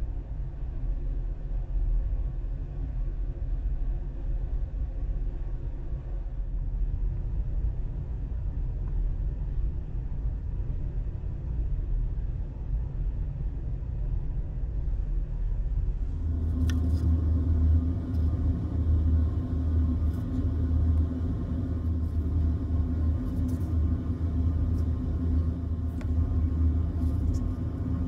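Steady low room hum that shifts about 16 seconds in to a stronger hum with a steady low tone, with scattered small clicks and taps as the plastic toiletry bottles are handled.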